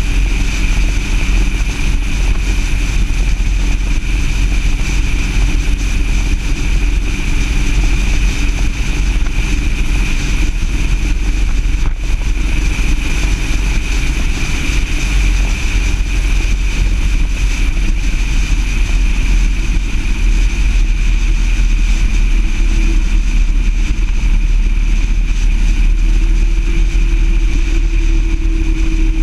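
A vehicle driving at steady road speed: its engine drones under heavy wind rumble on an outside-mounted camera, and the engine note rises slightly about three-quarters of the way through.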